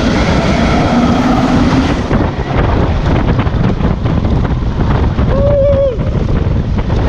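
Wind rushing over the camera microphone and the wheels rumbling on the track as the Intamin inverted launched coaster train runs at speed. A rider's brief whoop about five and a half seconds in.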